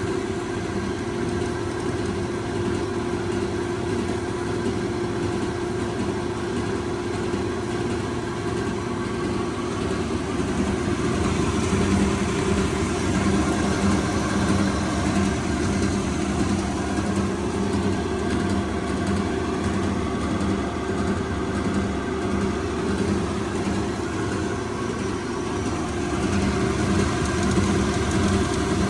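Amada HFA 250W automatic horizontal band saw running: a steady machine hum with several constant tones over a noisy whir, getting a little louder about a third of the way in.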